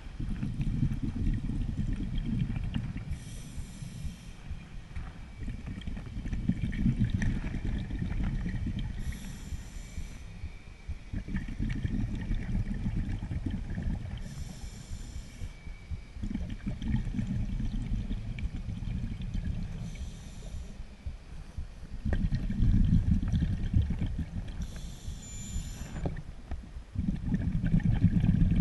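Scuba diver breathing through a regulator underwater. Each short hiss of an inhalation through the demand valve is followed by a longer low rumble of exhaled bubbles, about one breath every five to six seconds.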